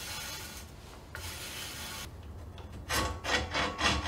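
A head tube facing cutter scrapes the lubricated end face of a bicycle head tube in rasping strokes, about three a second, as its T-handle is turned. The strokes start about three seconds in, after a faint steady hiss.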